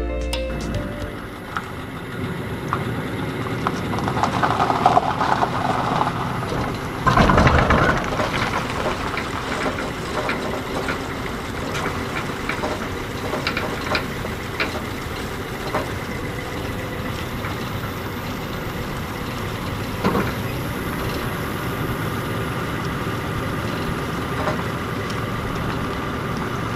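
A boat on its trailer being towed up a ramp: the tow vehicle's engine running steadily under the rattling and clunking of the trailer, with a loud clatter about seven seconds in.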